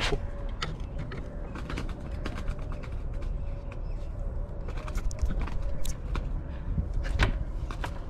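Footsteps on the wooden planks of a rope suspension bridge, with irregular creaks and knocks from the boards. The sharpest knock comes about seven seconds in.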